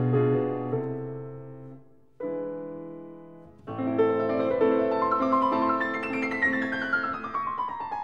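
Solo piano music: a held chord fades away, a new chord is struck about two seconds in, then a run of notes starts and steps downward in pitch near the end.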